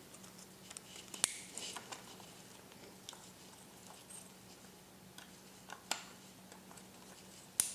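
Faint, scattered clicks and light rattling of plastic electrical connectors and wires being handled as a Power Commander harness is plugged into a motorcycle fuel injector connector, over a faint steady hum.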